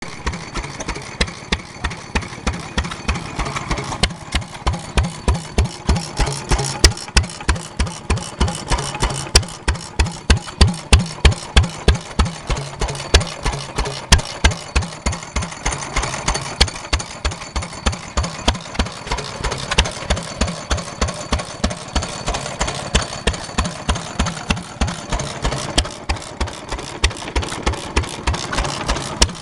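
1943 H.V. McKay Sundial 4 hp single-cylinder stationary engine running, its flywheels spinning, with a regular beat of sharp firing strokes, a few a second, and mechanical clatter from its open crank in between.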